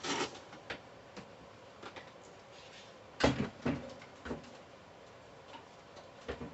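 Parts of a Glowforge laser cutter's gantry being handled by hand: a few short knocks and clicks, loudest at the start and in a cluster about three seconds in.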